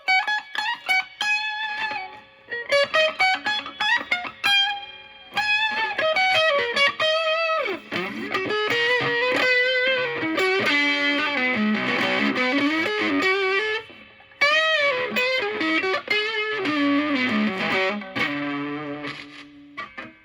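Electric guitar (Fender Stratocaster) played through a silicon Fuzz Face-style fuzz pedal set near full gain into a Marshall Valvestate amp: fuzzy single-note lead lines with string bends and vibrato, broken by brief pauses about two seconds in and about fourteen seconds in.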